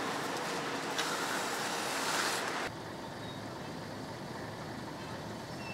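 Steady rushing background noise that drops abruptly to a quieter, duller noise about two and a half seconds in.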